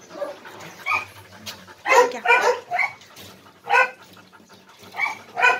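Dog barking: a string of about eight short, irregularly spaced barks, some coming in quick pairs, loudest about two seconds in.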